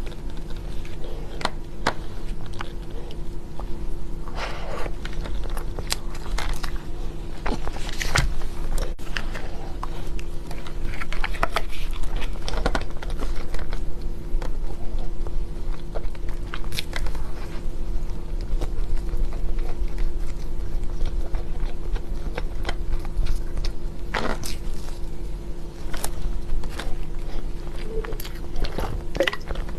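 Close-miked biting and chewing of chocolate desserts, with many short, irregular crunches and clicks over a steady low hum.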